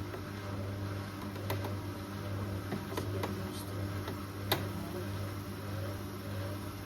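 Washing machine running part-way through a cycle with a load of snow, a steady low hum with a few sharp clicks and knocks from the drum, the loudest about four and a half seconds in. The machine keeps failing to reach its spin because the load is off balance.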